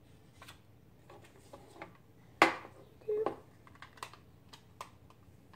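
Small plastic toy being handled and worked: light scattered clicks and taps, with one sharp, loud click about two and a half seconds in and a smaller clatter just after.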